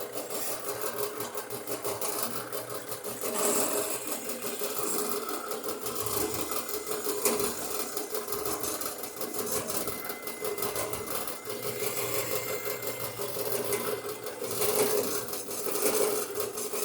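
Drill press running with the bit cutting into 1/4-inch-thick steel channel: a steady motor hum with a fast rattling chatter from the cut.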